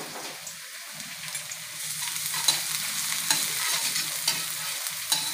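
Minced garlic sizzling in hot oil in a stainless steel wok, stirred with a metal turner that scrapes and clicks against the pan. The sizzle grows louder about two seconds in.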